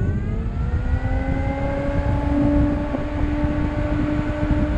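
12-volt electric radiator cooling fans just switched on and spinning up to full speed. Their whine rises in pitch over the first couple of seconds and then holds steady, over a heavy rush of air across the microphone.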